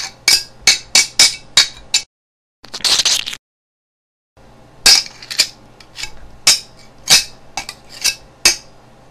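Sword-fight sound effects: a quick run of sharp metallic clinks like blades clashing. About two seconds in the sound cuts to dead silence, broken by one short hissing burst, and then the clinks start again.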